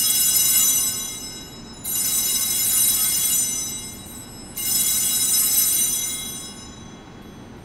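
Altar bells rung three times, about two and a half seconds apart, each ring fading away. They mark the elevation of the chalice at the consecration of the Mass.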